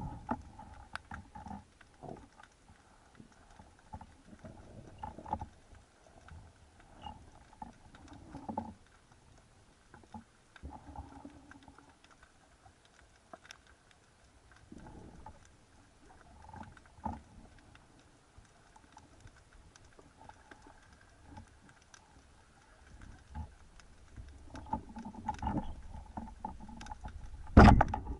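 Underwater ambience through a camera housing: scattered faint clicks and knocks and muffled swells of noise from the diver's movement, with a few louder knocks near the end.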